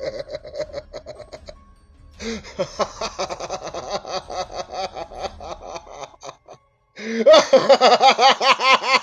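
A man's theatrical Joker-style maniacal laugh in rapid pulses, building in three runs: snickering, then longer laughter after a short pause, then after a second pause about six and a half seconds in, a much louder cackle whose pitch rises and falls with each pulse.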